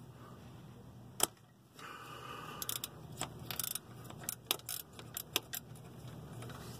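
Metal clinks and taps of a wrench and fittings being worked by hand: one sharp click about a second in, then a run of irregular clinks.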